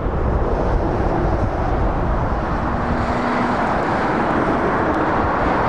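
Heavy lorries and vans driving past at road speed on a dual carriageway: a steady rushing drone of diesel engines and tyres on tarmac.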